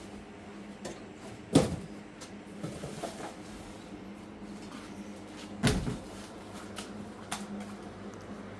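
Cardboard boxes of packaged snacks being handled and set down: two dull thumps about four seconds apart, with lighter knocks and rustles between them. A steady low hum runs underneath.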